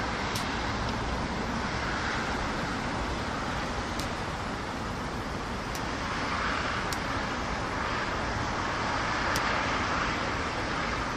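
Steady road traffic noise from a bridge overhead, swelling gently as vehicles pass, with a few faint sharp ticks.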